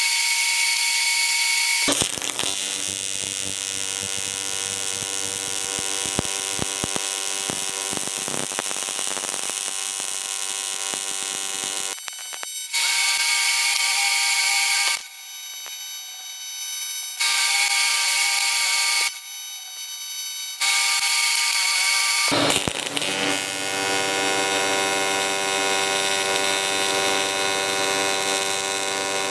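AC TIG welding arc on aluminium buzzing from an HTP Invertig 221, with a hiss above the buzz. It is loud at first, softer for a while, then stops and restarts several times in runs of about two seconds before running on steadily.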